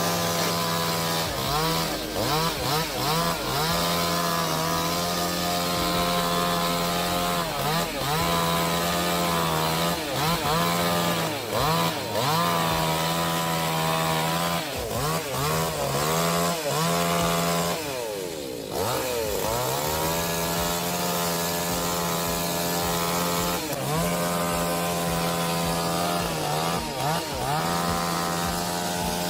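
Chainsaw cutting wood, its engine pitch dipping again and again as it bogs under load and then climbing back, with one longer, deeper dip a little past the middle.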